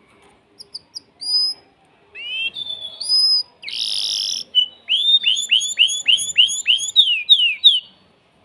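Male domestic canary singing its excited breeding song: a few short chirps, then rising whistled notes, a harsh buzzy note about four seconds in, and a fast run of about ten falling whistles, roughly three or four a second, ending shortly before the close.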